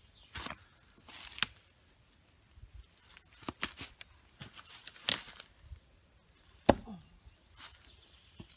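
Homemade knife being abuse-tested in a fallen log: boots crunching in dry leaves, the blade knocked into the wood, stood on and worked free. There are several sharp knocks and scrapes, the loudest about two-thirds of the way through.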